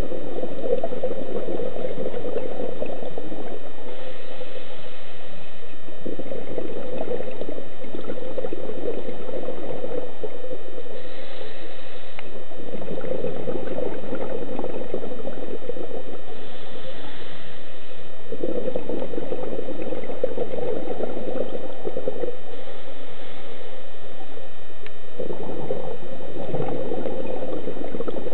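Scuba diver breathing through a regulator underwater: a short hiss on each inhale and a longer burst of bubbling on each exhale, about one breath every six seconds.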